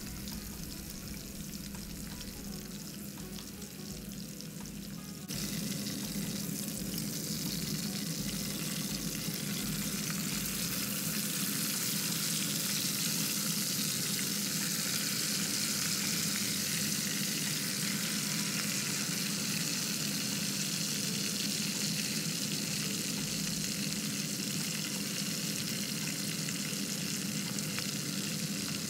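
Marinated whole quail deep-frying in hot oil in a stainless steel pot, a steady sizzle of bubbling oil. The sizzle grows suddenly louder about five seconds in.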